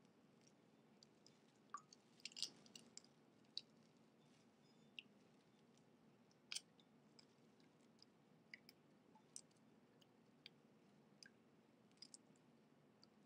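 Pomegranate seeds being pried by hand from the fruit's rind and pith, giving faint, scattered crisp clicks and crackles, with a small cluster about two and a half seconds in.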